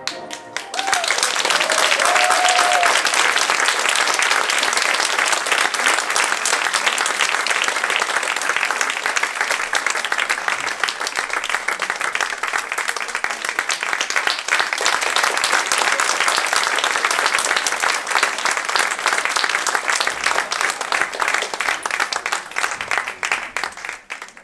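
Audience applauding steadily after the music ends, with a brief whoop or cheer about a second in; the clapping dies away near the end.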